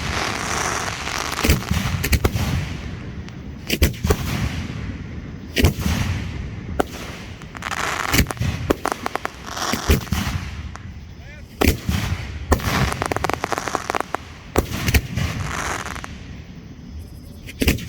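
Fireworks display: shells bursting one after another, with sharp bangs roughly one or two a second between stretches of crackling hiss.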